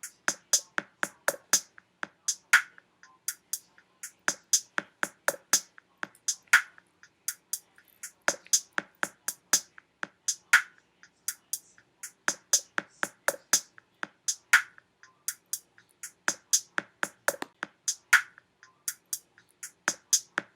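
A sparse percussion beat of short, dry clicks and knocks, about three to four hits a second, with a stronger accent every two seconds or so.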